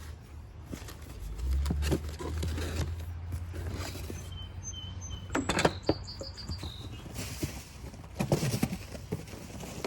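Unboxing handling noise: knocks and clicks as the circular saw and its packing are moved about, then rustling and crinkling near the end. A low rumble runs through the first half, and a few short high chirps sound about halfway through.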